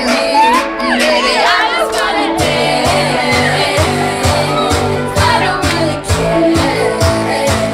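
Loud pop dance music with a singing voice. About two and a half seconds in, a heavy bass beat comes in at about two beats a second.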